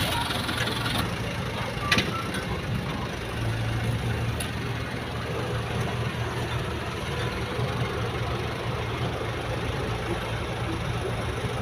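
Heavy diesel engine idling steadily at low revs, with one sharp knock about two seconds in.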